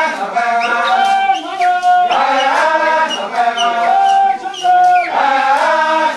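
A group of voices chanting a traditional dance song together in repeating short phrases, with held notes and slides between them. Faint regular percussive ticks sound behind the singing.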